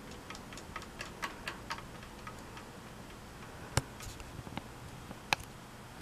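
A 42-inch Walmart Impressions ceiling fan with a light kit, running with a faint steady hum and irregular light clicking and ticking. The clicks come several at a time in the first two seconds, then two sharper, louder clicks land a little after the middle and toward the end.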